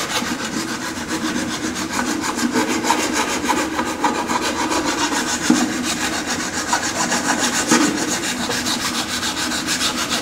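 A rough file rasping back and forth in steady repeated strokes along the edge of a cardboard helmet coated with body filler, taking off its high spots.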